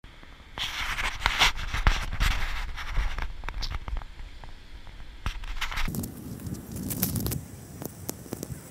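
Scraping and crackling handling noise with many sharp clicks, from a jostled moving camera and a metal luggage trolley being pushed. A low rumble comes in a little past the middle for about a second and a half.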